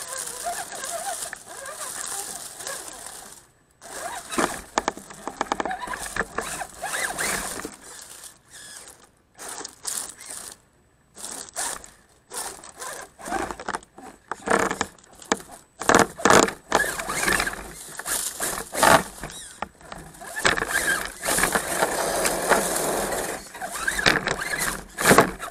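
Redcat Gen7 radio-controlled crawler driving in stops and starts, its electric motor and geared drivetrain whining in short bursts mixed with scraping and crunching from the tyres and chassis.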